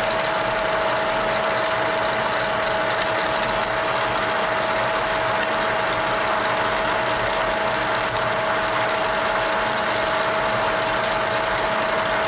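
Model 675 milling machine running steadily with its spindle turning, the gear train giving a constant whirring hum with one steady tone. A few light ticks are heard over it.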